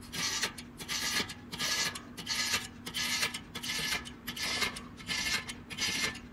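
Hand stomach pump being worked in a bucket, pushing electrolyte fluid through a stomach tube into an elk's rumen: raspy strokes, about two a second.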